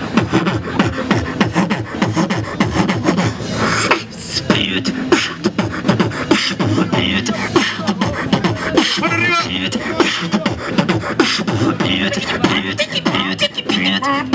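Live human beatboxing into a handheld microphone, amplified through a loudspeaker: a dense, quick rhythm of vocal kick, snare and hi-hat sounds. About nine seconds in, a brief warbling pitched sound rides over the beat.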